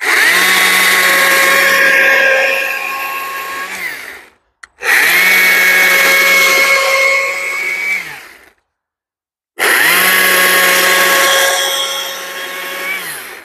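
Stihl electric chainsaw plunge-cutting into a wooden pumpkin carving to cut out an eye: three runs of steady motor whine with the chain in the wood, each starting suddenly, lasting three to four seconds, and winding down in pitch to a stop as the trigger is released, with no idle in between.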